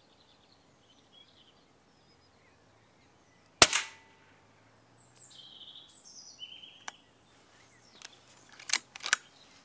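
A single moderated air rifle shot about three and a half seconds in, a short sharp crack. Faint birdsong follows, and a few sharp clicks come near the end.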